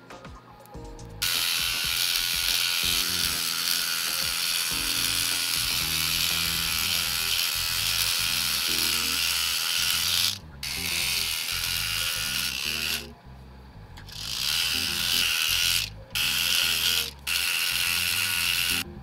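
Sanding of a white resin garage-kit figure part with a sanding stick: a loud, steady scratchy rasp that starts about a second in. It runs unbroken for about nine seconds, then comes in shorter stretches with brief pauses.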